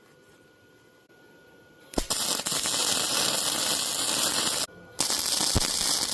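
Electric arc welder laying a weld, a steady loud crackling arc that strikes about two seconds in, stops briefly and strikes again for a second bead.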